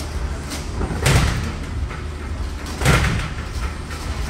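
Two heavy thuds about two seconds apart, from a man's attempts to climb a thick gym climbing rope, over a steady low hum.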